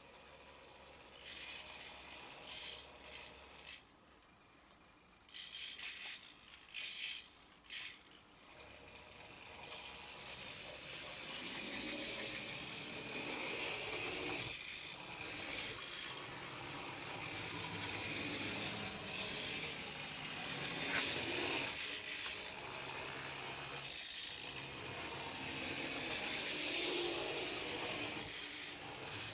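Tiny drive motors and gears of 1/87-scale RC model trucks whirring with a rasping, scraping sound. It comes in short bursts during the first eight seconds, then runs almost continuously.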